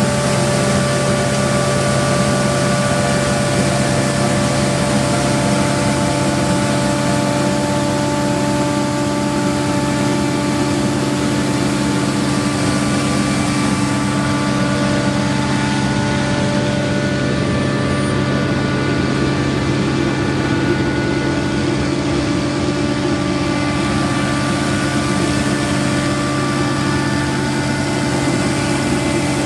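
TYMCO regenerative-air street sweeper running steadily, its engine and blower giving a constant hum of several held tones over a rushing air noise.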